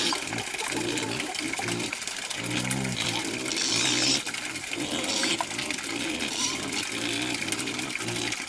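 Pigs grunting over and over in short low calls, with short bursts of running or splashing water.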